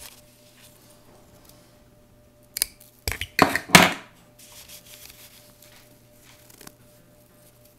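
Handling noise in a Ninja Master Prep pitcher of crushed ice: a click, then a brief clatter and scrape of the blade assembly and ice about three seconds in, with quiet rustling of the ice before and after.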